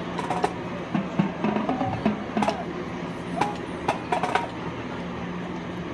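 Marching band percussion: scattered, irregular sharp taps and clicks of drumsticks and percussion instruments, about ten in the span, with no steady beat.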